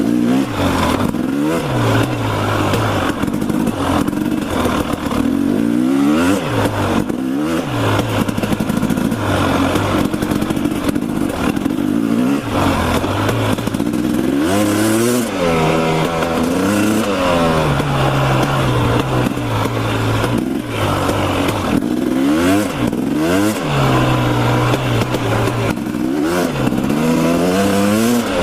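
Dirt bike engine being ridden off-road, revving up and dropping back over and over as the throttle opens and closes every second or two, with scattered knocks and rattles from the rough ground.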